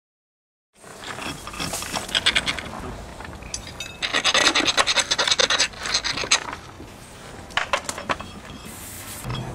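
Rough scratching and scraping in uneven bursts of about a second each, starting about a second in.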